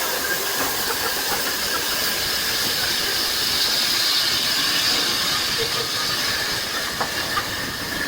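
Steam hissing steadily from 60163 Tornado, a Peppercorn A1 class steam locomotive, swelling slightly midway.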